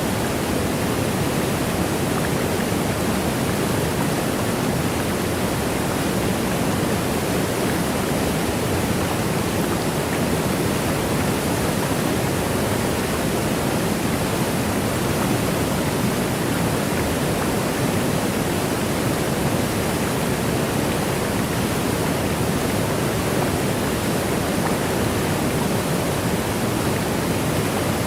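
Waterfall: a steady, even rush of falling water, with no single splashes or changes.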